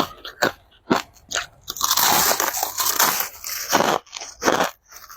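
Crushed ice being bitten and chewed close to the microphone. It opens with a few sharp crunches about half a second apart, then about two seconds of dense, continuous crunching, then a few more single crunches near the end.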